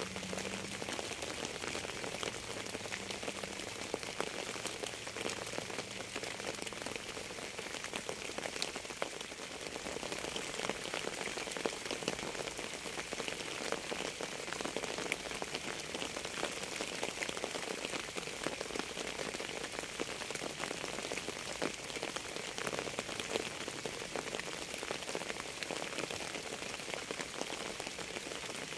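Steady rain: an even hiss dotted with the ticks of single drops.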